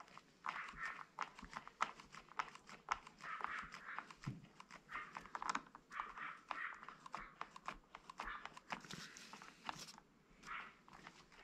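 Quiet handling sounds from hands working a motorcycle's clutch lever over a paper towel: a string of small clicks mixed with rustling and crinkling.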